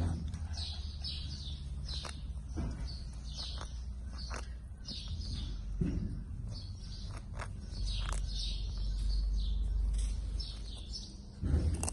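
Small birds chirping repeatedly in short notes, over a steady low rumble and a few sharp clicks.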